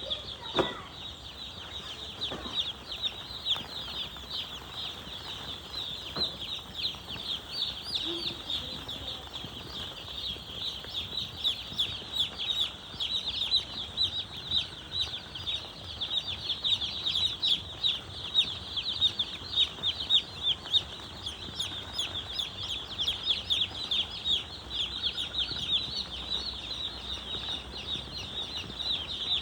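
A brood of many chicks cheeping nonstop: a dense chorus of short, high, falling peeps that grows busier partway through.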